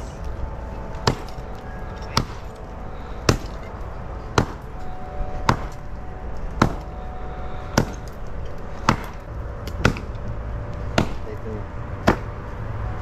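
Pickaxe striking broken concrete and compacted base gravel in steady, evenly spaced blows, about one a second.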